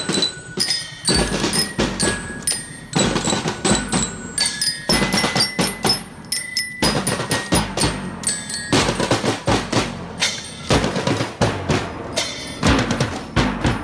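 School marching band playing live: bell lyres ring out a tune over a steady beat of snare and bass drums.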